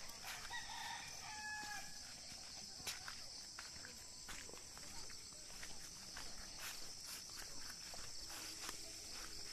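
A rooster crows once near the start, one call of about a second and a half that drops slightly at the end. Under it are a steady high insect buzz and faint scuffing footsteps on a dirt path.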